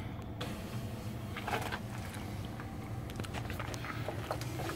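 Low steady background hum with scattered soft clicks and a brief rustle about a second and a half in, the sounds of a phone being handled and moved around.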